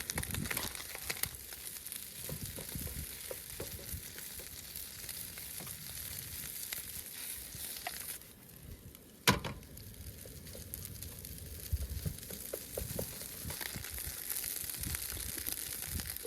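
Steak frying in a hot pan, a steady sizzle with small knocks of the pan and utensils. About nine seconds in, the sizzle briefly drops and a single sharp click sounds.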